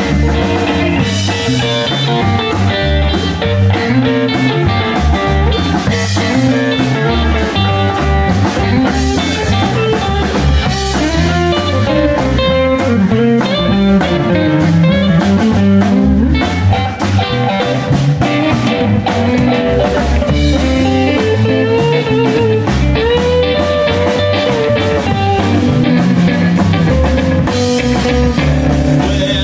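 Live blues band playing an instrumental passage: an electric guitar plays the lead, with bending notes, over bass guitar and a drum kit.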